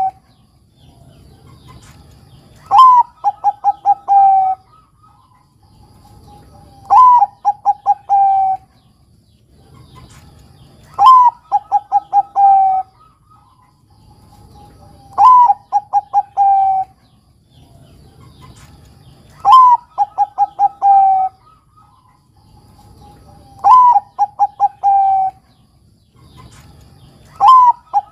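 Bangkok-type zebra dove (perkutut) cooing in its song, about seven phrases one every four seconds or so. Each phrase is a rising opening note, then a quick run of short notes ending in a longer note.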